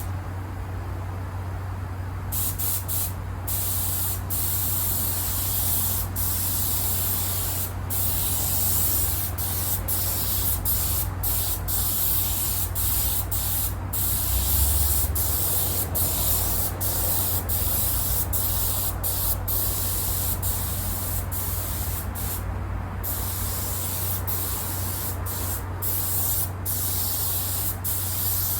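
Trigger spray gun hissing as thin water-based leather sealer goes onto car seats in light passes, the hiss cut by many brief gaps where the trigger is let off, over a steady low hum.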